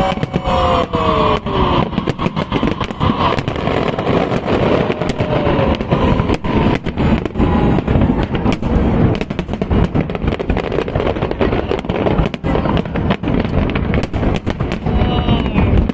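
Aerial fireworks display in its grand finale: a dense, continuous barrage of bangs and crackling shells, many bursts a second, with a few falling whistles at the start and end.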